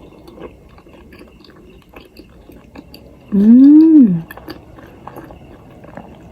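A woman chewing a mouthful of potato-filled momo dumpling close to the microphone, with small soft mouth clicks. About three seconds in she hums a loud 'mmm' for about a second, rising and then falling in pitch.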